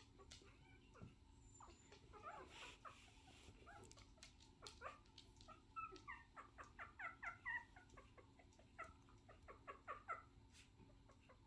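Faint, quick series of small high-pitched squeaks and whimpers from a very young pet, mixed with light ticks, busiest in the second half.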